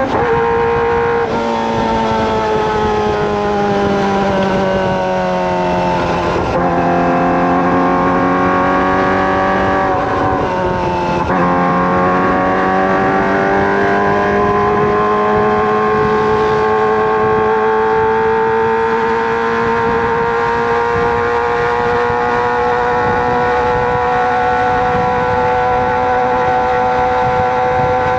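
Kawasaki ZX-25R's 250 cc inline-four running at high revs through a Racefit Slash aftermarket exhaust while being ridden. The engine note falls for several seconds and breaks briefly twice, then climbs slowly and steadily as the bike accelerates.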